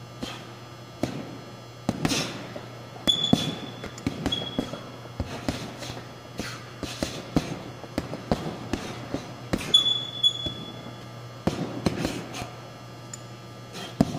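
Rapid, irregular strikes of a short hand-held implement against heavy punching bags: sharp smacks and thuds, a couple of the hardest followed by a brief metallic ring.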